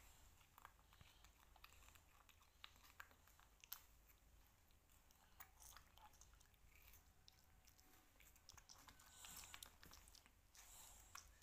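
Faint chewing and biting into fresh plums by a baby monkey and a toddler: scattered short wet smacks and small crunches.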